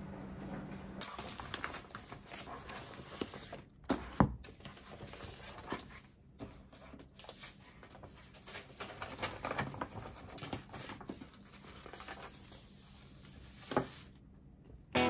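Paper sheets and study books handled on a wooden desk: rustling and shuffling with scattered light taps, and a sharp knock as something is set down about four seconds in, another near the end.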